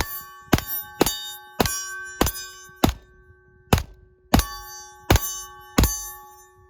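PSA Dagger Compact 9mm pistol firing ten shots of Winchester M1152 at a steady pace, about one shot every two-thirds of a second. A steady metallic ringing, like a struck steel target, hangs between and after the shots.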